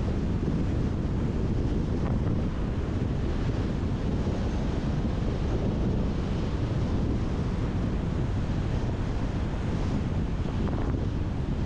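Wind rushing over the microphone of a camera on a bicycle descending a paved road at speed: a steady, unbroken noise heaviest in the low end.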